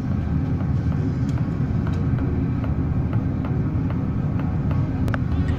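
Steady low rumble of strong wind and heavy seas on a cargo ship's open deck in a storm, with a few faint ticks above it.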